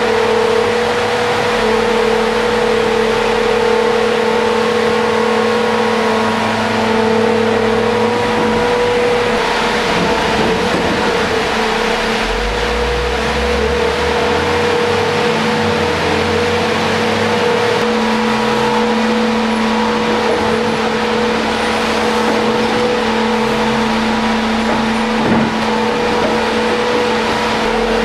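ITC 312 tunnel heading machine running in a tunnel: a loud, steady machine hum with a constant whine over a broad hiss. A dump truck's lower engine rumble rises and shifts from about twelve seconds in, and there is a single brief knock near the end.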